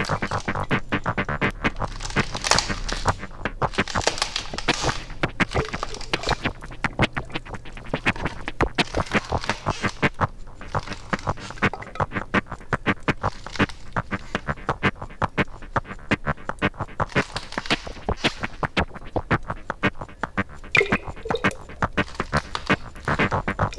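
Experimental ambient electronic music: a dense run of rapid, irregular clicks and glitchy stutters throughout.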